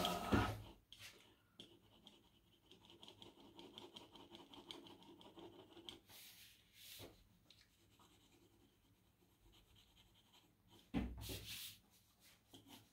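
Pencil lead scratching and rubbing on paper in short drawing strokes, faint for most of the time, with a louder rub or bump against the paper about eleven seconds in.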